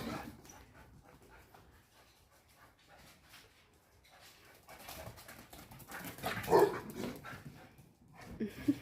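Akita dog vocalizing: one loud, short sound about six and a half seconds in and two brief high-pitched whines near the end, after a quiet stretch.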